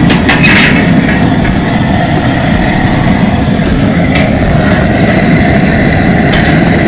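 High-pressure propane burner running full under a boiling crawfish pot, a steady low rush of flame. A few metallic clanks from the aluminium pot lid as it is lifted and set aside, near the start and again about four seconds in.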